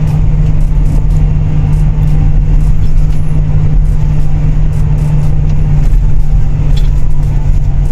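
Moving road vehicle heard from on board: a steady low engine drone over continuous road and traffic noise.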